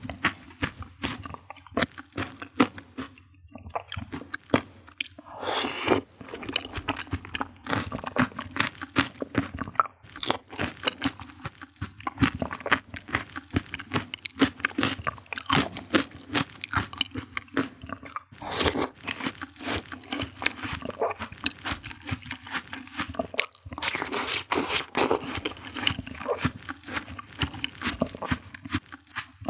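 Close-miked biting, crunching and chewing of fresh fruit, a dense run of wet crunches with a few louder bites.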